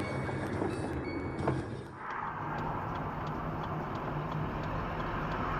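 Car interior driving noise picked up by a dashcam: steady engine and tyre rumble, with a few faint ticks in the first two seconds. About two seconds in, it cuts to another dashcam recording of the same kind of steady driving noise.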